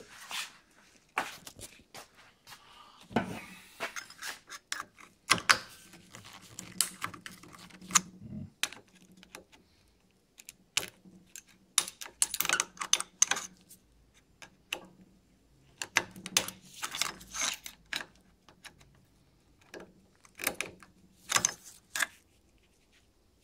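Irregular metallic clicks and clattering from a disassembled NuVinci CVT bicycle hub and hand tools being worked on a workbench, in short clusters with brief pauses.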